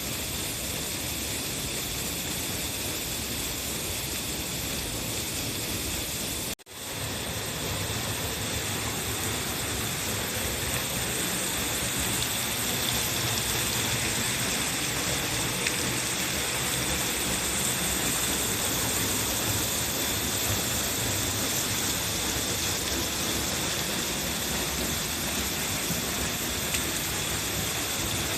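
Steady rushing of a large waterfall, which cuts out for an instant about six and a half seconds in.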